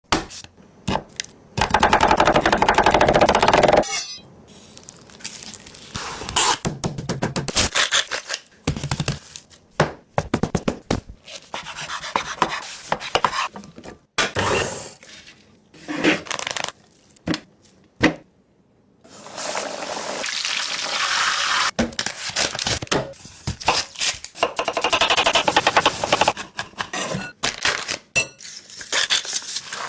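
Food-preparation sounds: utensils scraping and knocking against dishes and pans, with two longer stretches of steady noise, one near the start and one about two thirds of the way through.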